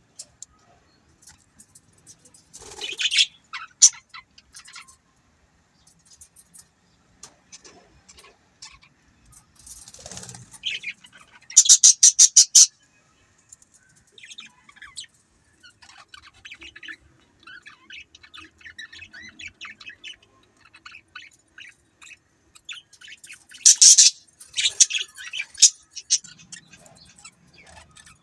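Budgerigars chirping and chattering: soft, quick twittering throughout, broken by louder bursts of sharp chirps, including a fast run of about eight chirps around twelve seconds in and another loud flurry near the end.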